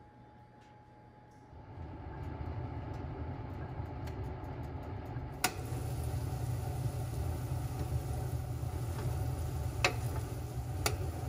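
A steady low hum starts about one and a half seconds in, and metal tongs click against a sheet pan three times as cauliflower florets are turned in an open oven.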